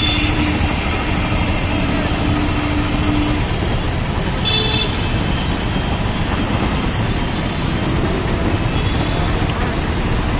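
Steady street traffic noise from a busy road full of auto-rickshaws and e-rickshaws, with a low hum over the first three seconds and a brief high tone about four and a half seconds in.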